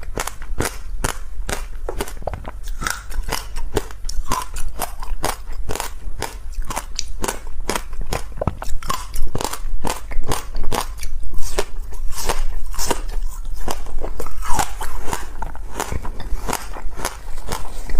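Crunchy ice being bitten and chewed close to the microphone: a rapid run of sharp cracks and crunches.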